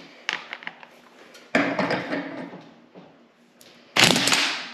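Half-inch electric impact wrench driving the centre bolt of a flywheel puller in two short loud bursts, about a second and a half in and near the end, to pull the flywheel off a two-stroke snowmobile engine's crankshaft. A few light clicks come before the first burst, as the socket is set on the bolt.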